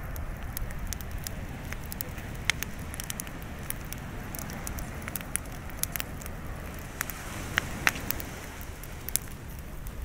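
Teepee-stacked wood bonfire crackling, with frequent sharp, irregular pops and snaps over a low steady rumble.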